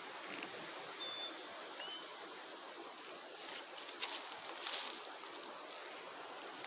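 Wind noise and outdoor rustle, with a few short, high bird chirps in the first two seconds. About halfway through come several seconds of crackling, crunching footsteps through dry brush.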